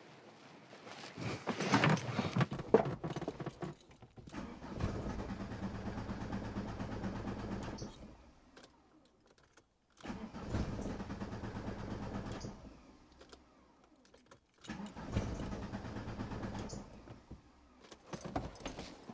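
Keys rattling at the ignition, then a Golf TDI diesel engine cranked three times on the starter, each try a few seconds long with pauses between, and it never keeps running. The immobiliser has the ECU keep the diesel pump's fuel cut-off closed, so the engine turns over but won't start.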